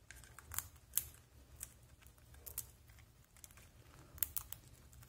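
Two cockatiels cracking and husking seeds in a seed dish: faint, irregular sharp crackles and clicks of beaks on seed hulls.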